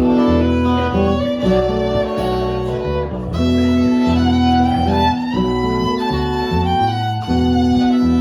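Instrumental break in a live folk song: fiddle playing held melody notes over acoustic guitar, with no singing.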